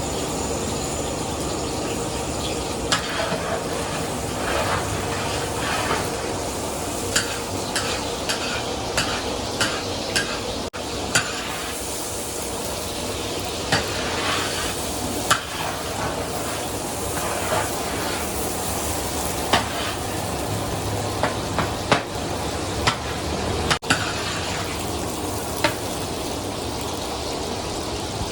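Corn being roasted in hot sand in a large pan and stirred: a steady gritty hiss with irregular sharp scrapes and clinks of the stirrer against the pan.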